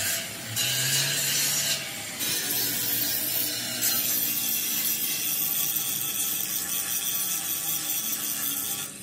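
Handheld angle grinder with a yellow abrasive disc grinding a steel frame: a steady high grinding hiss, with two short breaks in the first two seconds.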